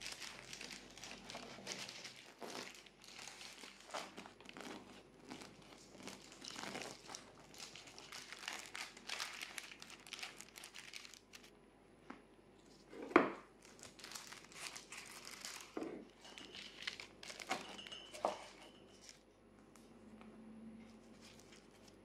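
A knife cutting through crusty focaccia on baking paper, with the crust crackling and the parchment crinkling in quick, irregular strokes. Then the cut pieces are handled, with one sharp knock on the wooden board a little past halfway, the loudest sound.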